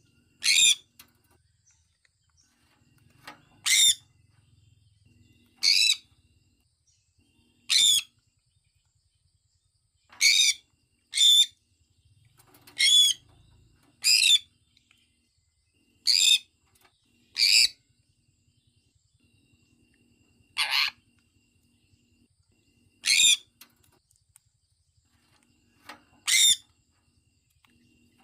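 Sun conure giving about a dozen short, shrill calls, one every one to three seconds at an uneven pace.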